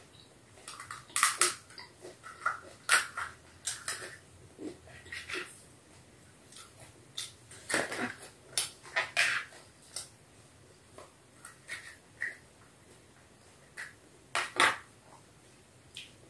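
Crisp panipuri shells cracking as they are broken open and filled with a spoon, with the spoon clicking on the plate and crunching as they are bitten. An irregular series of sharp cracks and clicks, loudest about eight to nine seconds in and again near fifteen seconds.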